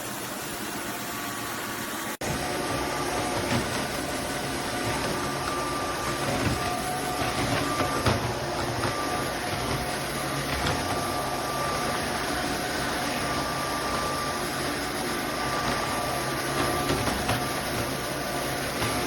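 Roborock F25 GT wet-dry vacuum mop running steadily, its motor noise carrying a faint steady whine. The sound cuts out for an instant about two seconds in, then carries on slightly louder.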